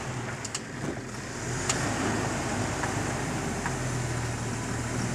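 Jeep TJ engine running at low, steady revs while crawling over boulders, growing a little louder about a second and a half in. A few short ticks sound over it.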